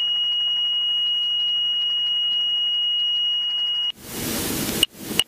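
Robinson helicopter's low rotor RPM warning horn, a steady high tone heard over the intercom as rotor RPM decays at the bottom of a practice autorotation touchdown. About four seconds in it breaks off for roughly a second of loud rushing noise, then comes back briefly.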